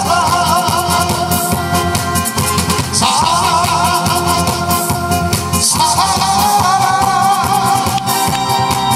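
A man singing an upbeat Korean song into a microphone over an amplified backing track with a steady beat. The melody wavers with vibrato and comes in phrases with short breaks between them.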